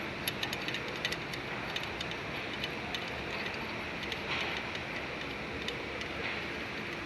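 Scattered sharp metallic clicks and light taps, several close together in the first second or so and fewer after that, over a steady background noise.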